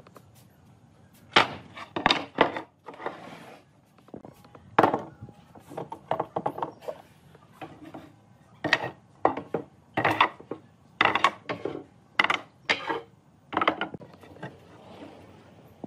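Pine boards and steel pipe clamps being laid down on a wooden workbench: a run of irregular wooden knocks and metallic clanks, with short pauses between them.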